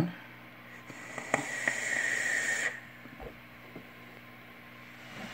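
Long draw on an e-cigarette vape: a steady hiss of air pulled through the mouthpiece and firing coil, with a faint whistle, lasting about two seconds and then stopping.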